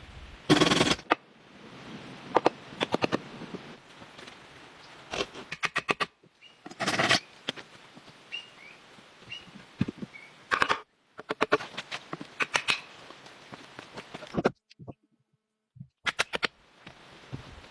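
Woodworking tool sounds: a series of sharp knocks and quick rattling runs of taps on wood, in short chunks that cut off abruptly.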